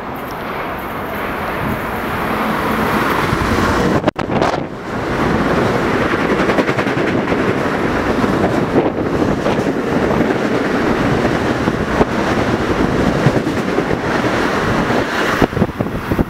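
Long Island Rail Road express train approaching and running through the station at speed. The rumble builds over the first four seconds, cuts out briefly, then holds as loud, steady wheel-on-rail noise while the cars pass.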